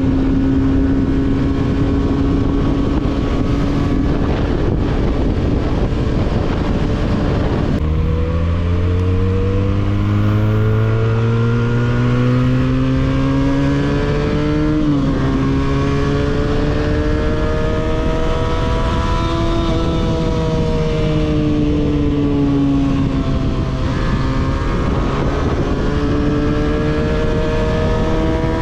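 300 cc motorcycle with a 302s exhaust, heard while riding. The engine holds a steady speed, then about eight seconds in accelerates with rising pitch, shifts up about halfway through and keeps pulling. It eases off and slows a few seconds later, then accelerates again near the end, over a constant rushing noise.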